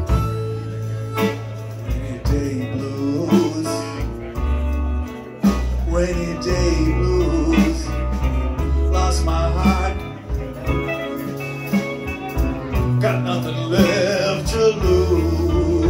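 A live blues band playing: electric guitars, keyboard and drums over steady low bass notes, with bending melodic lines.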